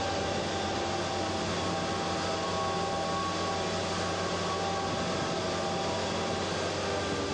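ARKTOS amphibious evacuation craft's engines running steadily: a constant drone of several held tones under a hiss, with no change in pitch or level.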